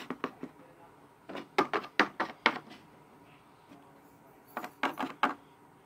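Plastic Littlest Pet Shop figures tapping on a wooden tabletop as they are hopped along, in three short runs of quick taps.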